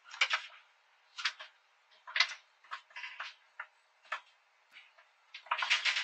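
Kitten's paws and claws tapping and scratching on a wooden floor: a run of irregular sharp clicks, with a denser scrabble near the end.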